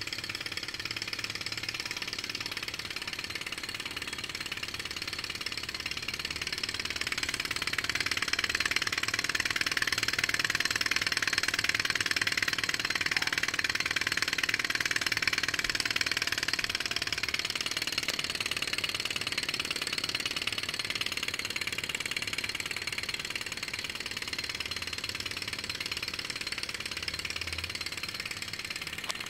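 Small two-cylinder thermal-lag Stirling engine running fast, a continuous rapid mechanical clatter from its pistons, crankshafts and flywheel as it belt-drives a small generator. The clatter grows louder for several seconds in the middle, then eases back.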